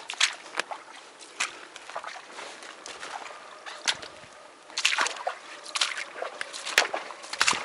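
Footsteps squelching and splashing through waterlogged forest ground, coming irregularly, with a heavier run of steps about two-thirds of the way through.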